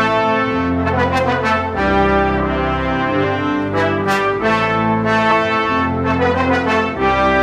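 Outro music: held chords over a deep bass line, changing every second or so.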